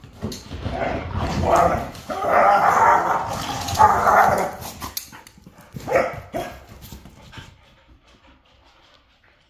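Two pit bull-type dogs play-fighting, barking in repeated bursts over the first few seconds, with one more bark about six seconds in, then dying away.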